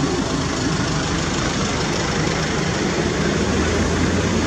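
Steady street traffic noise with a low engine hum, like a vehicle idling.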